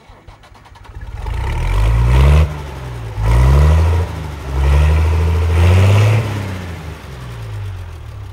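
A vehicle engine accelerating. Its pitch climbs and drops back three times, as if shifting up through gears, then eases off near the end.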